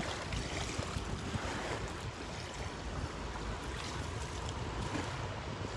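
Wind buffeting the microphone over open river water, with water sloshing around the legs of a person wading in the shallows.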